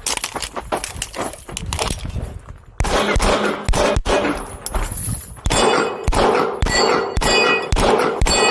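Pistol shots fired in quick succession at steel targets, each hit answered by the plates clanging and ringing. The ringing is strongest in the second half.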